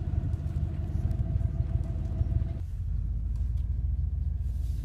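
Low, steady rumble of a truck's engine running, heard from inside the cab; a steady hum on top of it stops abruptly about two and a half seconds in.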